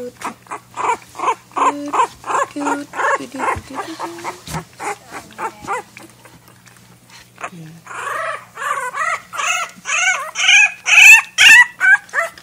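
Nineteen-day-old puppies whimpering and yipping in quick, squeaky calls, about three or four a second for the first few seconds, then louder rising-and-falling yelps from about eight seconds in.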